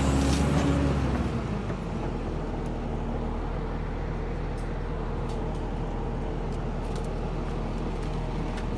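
Diesel engine of an excavator working a processor head, dropping from working revs to a steady idle about a second and a half in, with a few faint clicks over the idling drone.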